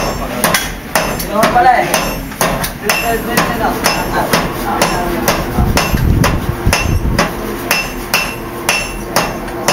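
Hand hammers striking red-hot steel on an anvil to forge a blade, a steady run of ringing metal blows at about three a second.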